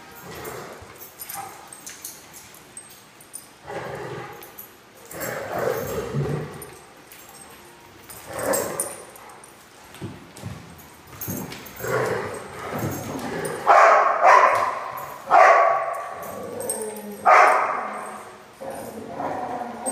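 Dogs barking and yipping as they play together, in irregular bursts that grow louder and more frequent in the second half.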